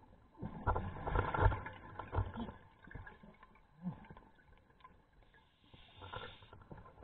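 Scuba diver's exhaled breath bubbling out of the regulator, heard underwater: a rumbling, crackling burst lasting about two seconds, then a softer, shorter hiss near the end.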